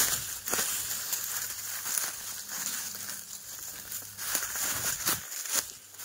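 Footsteps crunching and crackling over the forest floor, irregular steps as someone walks on.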